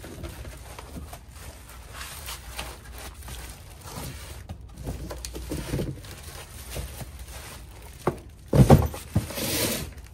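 Plastic wrap and foam packing rustling and scraping as a wrapped solar panel blanket is handled and its foam end pieces pulled off, with a couple of knocks about eight seconds in, the loudest sounds, followed by a second of crinkling.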